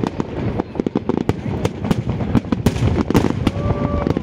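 Aerial fireworks display: many shells bursting in rapid, irregular bangs, with crackling between them.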